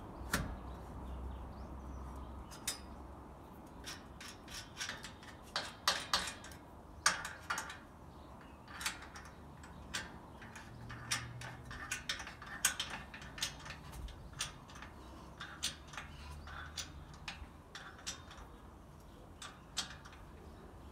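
Ratchet spanner clicking as it tightens a bolt on a steel awning mounting bracket, in irregular runs of sharp metallic clicks.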